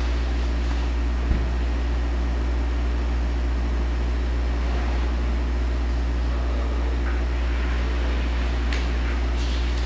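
Steady low electrical hum with a stack of evenly spaced overtones, the mains hum of a recording system, with a single click just over a second in.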